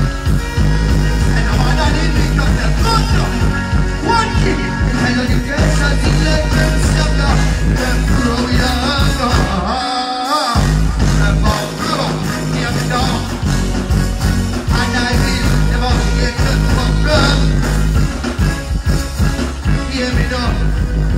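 Live dancehall performance through a stage sound system: a heavy bass-driven riddim with a deejay's vocals over it. The bass cuts out for about half a second around the middle, then comes back in.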